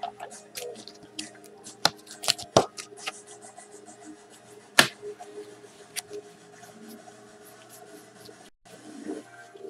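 Trading cards handled by hand: sharp plastic clicks and rustles as a sleeved card is handled, then a stack of cards flipped through. The clicks come thickest and loudest in the first five seconds and are sparser after.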